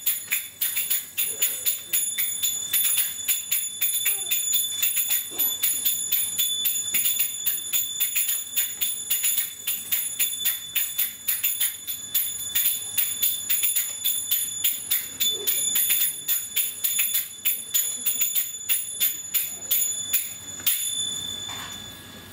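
Finger cymbals (zills) played by belly dancers in a rapid, even rhythm of bright metallic strikes with a ringing tone, stopping after a last strike near the end.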